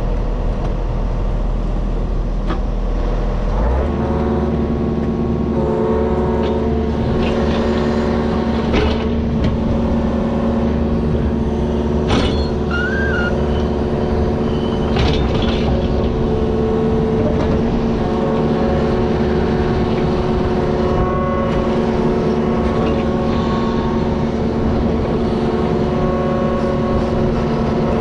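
Heavy digging equipment's engine running steadily under work, its pitch stepping up about four seconds in, with a few sharp knocks near the middle.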